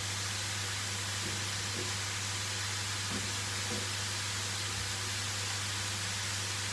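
A pan of sautéing bean sprouts sizzling with a steady hiss, over a low steady hum.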